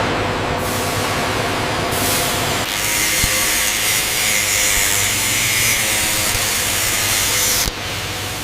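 Factory machinery noise with a steady low hum. About three seconds in, a loud hiss joins, then cuts off suddenly near the end.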